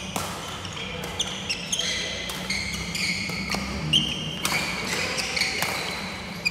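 Badminton rally: sharp racket hits on the shuttlecock, several in quick succession, mixed with short high squeaks of court shoes on the wooden floor.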